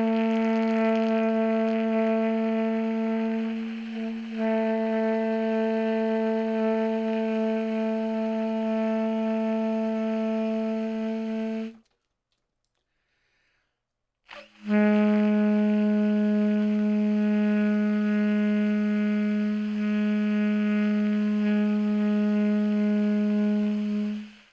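Baritone saxophone playing long tones: one note held steadily for about twelve seconds, briefly broken and restarted about four seconds in, then, after a short pause, a second long steady note of about ten seconds. They are long tones played as softly as he can, to build breath support through the diaphragm and embouchure.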